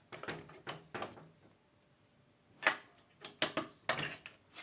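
Several short, sharp clicks and light knocks at uneven intervals, from a microwave oven being handled. A few come in the first second and a closer-spaced cluster starts after a pause of over a second.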